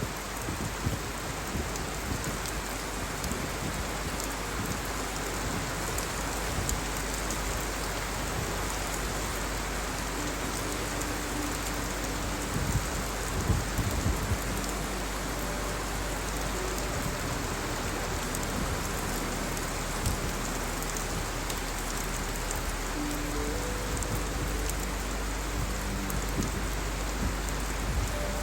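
Steady rainfall: an even hiss of drops on wet ground, with a few louder spatters about thirteen seconds in.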